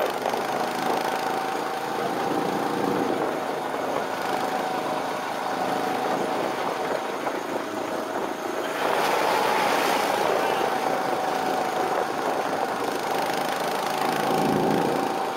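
Go-kart engine running steadily as the kart drives around the track, with a louder rush of noise about nine seconds in.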